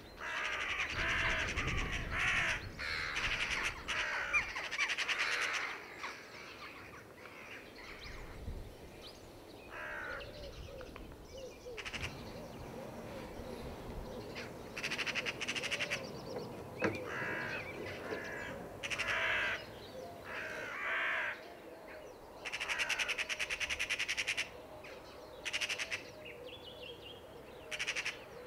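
Crows cawing and magpies chattering: a dense run of overlapping calls in the first few seconds, then scattered single calls and short rattling bursts.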